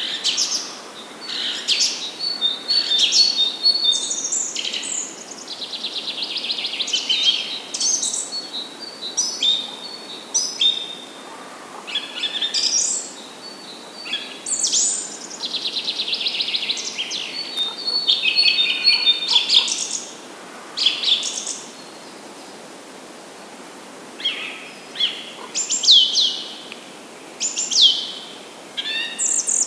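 Several songbirds singing and calling in a forest: rapid trills, chirps and downward-sweeping whistled notes coming in bursts with short pauses between, over a faint steady hiss.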